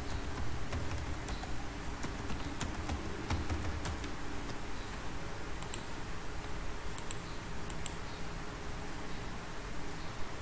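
Computer keyboard typing: scattered, irregular key clicks over a steady low background hum.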